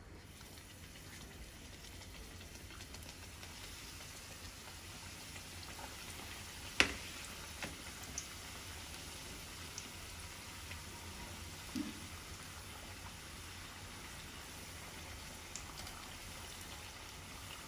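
Square pastry patties deep-frying in hot oil in a kadai: a steady sizzle with light crackles. One sharp knock about seven seconds in, and a few fainter ticks after it.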